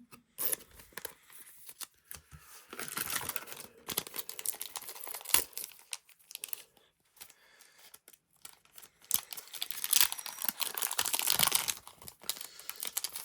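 A Pokémon TCG booster pack wrapper being torn open and crinkled in the hands, in two main bouts of tearing and rustling with small crackles between them.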